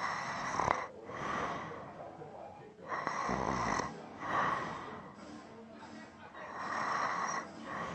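A man snoring in his sleep: noisy, rasping breaths in and out, one every second or two. One deeper snore comes about three seconds in.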